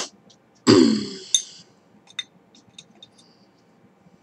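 A woman clears her throat once, a short rasping sound with a falling pitch, then a few light clicks as makeup brushes are handled.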